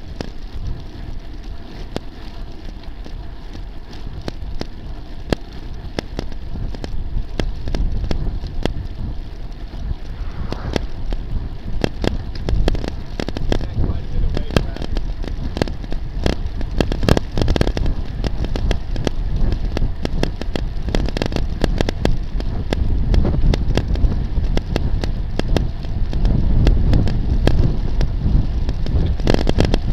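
Wind rushing over a bicycle-mounted camera's microphone, with tyre and road noise from the moving bike and frequent small clicks and rattles as the mount shakes over the road surface. The rush grows louder in the last third.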